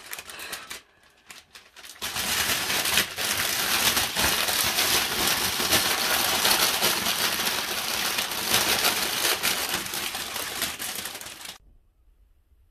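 Clear plastic bag crinkling as hands rustle and press it around a cat lying inside: a dense, rapid crackle that starts about two seconds in and cuts off suddenly near the end.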